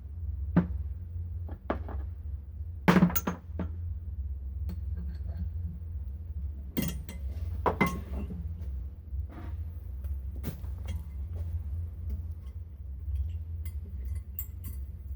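Metal motorcycle fork parts clinking and knocking as they are handled, about a dozen separate knocks, the loudest about three seconds in, over a steady low hum.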